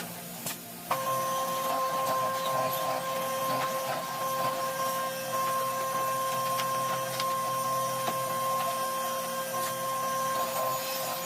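An electric power tool's motor switches on about a second in and runs at a constant speed with a steady whine.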